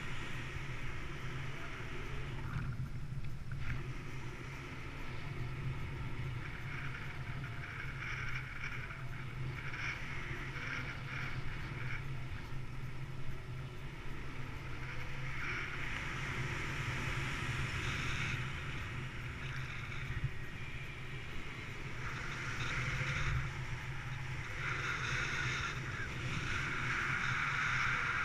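Wind rushing past a paraglider in flight, heard as steady wind noise on the microphone that swells and eases in gusts.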